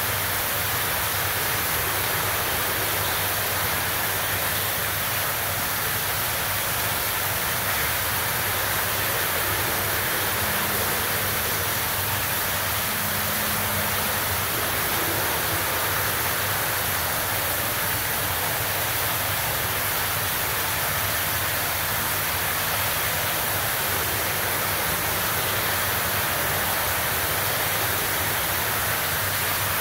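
A steady, even whooshing hiss with a low hum underneath.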